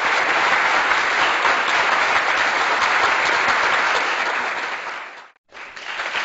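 Applause: steady clapping from a crowd that fades out about five seconds in, stops for a moment, then starts again.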